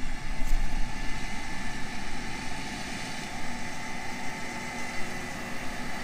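Case IH combine running as it harvests corn: a steady engine and machinery hum with a faint constant whine, and an unsteady low rumble of wind on the microphone.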